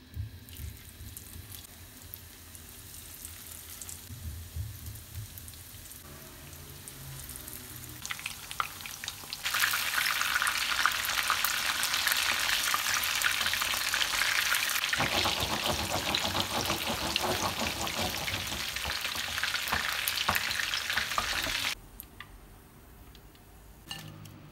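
Breaded fish fingers shallow-frying in hot oil in a nonstick pan: a loud, dense crackling sizzle of bubbling oil. It is faint for the first several seconds, comes in loud about ten seconds in, and cuts off suddenly a couple of seconds before the end.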